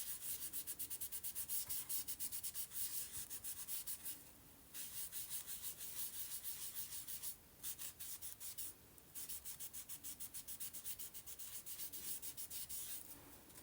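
A baby wipe scrubbed quickly back and forth over an inked stencil on paper, several strokes a second. The scrubbing stops briefly three times.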